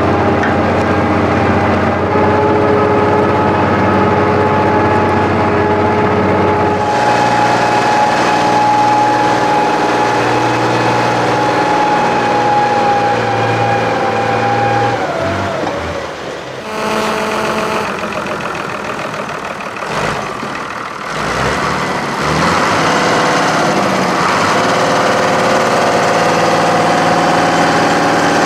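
UTB 1010 DT 4x4 tractor's diesel engine running steadily while pulling logs on a cable. About halfway through its note sags and falls away, stays lower and quieter for several seconds, then it settles back into steady running near the end.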